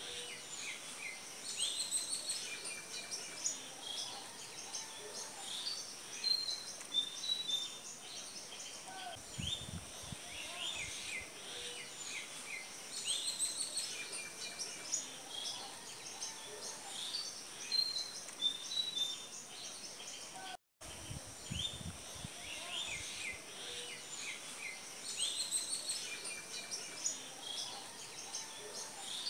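Many small birds chirping and twittering in short, high calls over a steady high-pitched whine. The sound cuts out for an instant about two-thirds of the way through.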